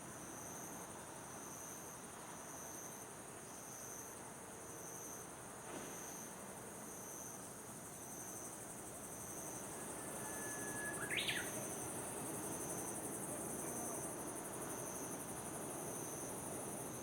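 Crickets chirping in an even pulsing rhythm, about one pulse a second, over a steady background hiss. A brief high squeak sounds once, a little past the middle.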